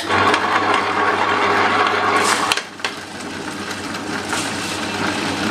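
Electric tabletop stone wet grinder running, its stone rollers grinding soaked rice and urad dal into batter with a steady motor hum. The sound starts abruptly, and there are a brief dip and a couple of knocks about two and a half seconds in.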